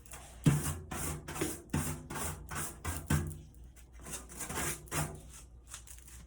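Sandpaper rubbing over body filler on a truck tailgate in quick back-and-forth strokes, about two or three a second: hand sanding of the filler.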